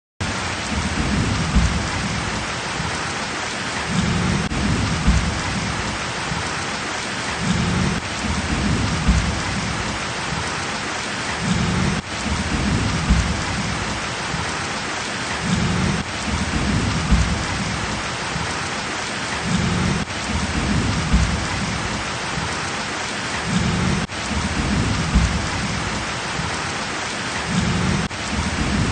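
Heavy rain pouring steadily in a dense hiss, with low rumbling swells that rise and fade about every four seconds. The same few seconds repeat over and over, as in a looped recording.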